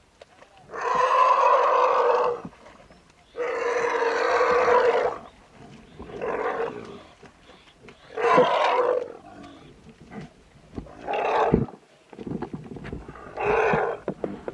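Asian elephant calf calling out loudly six times in a row: the first two calls are long, the rest shorter. These are the cries of a calf stuck in deep mud and being hauled out with straps.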